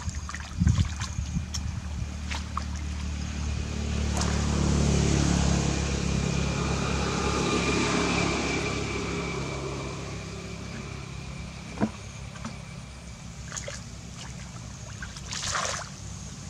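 Hands splashing and sloshing in shallow muddy water, with a few sharper splashes. An engine passes by, swelling about four seconds in and fading away over the next several seconds.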